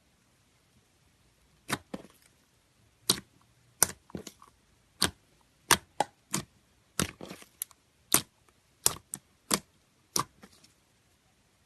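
Slime being squeezed and pressed, giving sharp clicking pops from trapped air at irregular intervals, about fifteen in all, some in quick pairs.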